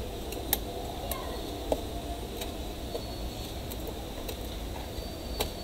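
Scattered light clicks and ticks of a metal pry tool working at the seam of a plastic portable speaker's housing, over a steady low hum.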